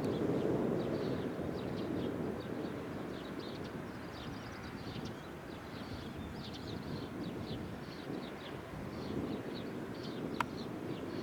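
Small birds chirping in many short high calls over a low, steady rumbling noise that is strongest at the start, with one sharp click about ten seconds in.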